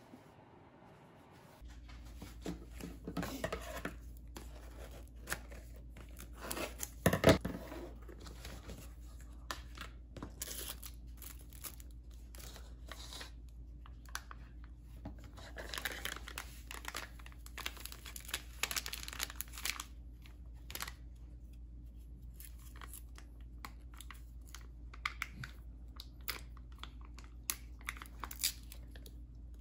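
Snack packaging being handled and opened: wrappers crinkling and tearing, lids and packets peeled, with scattered taps and clicks on a countertop. One louder knock about seven seconds in, over a steady low hum from about two seconds in.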